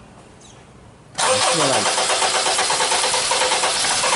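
Honda CR-V engine starting about a second in, then running steadily. The engine has a cam and crank incorrect-phase fault (P0341) that keeps it from staying running.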